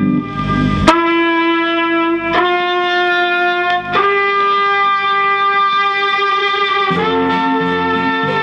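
Music from a vinyl record played through 1950s Bell & Howell valve amplifiers (models 601 and 621) and their speakers: long held notes that change pitch every second or two, with one sharp click about a second in.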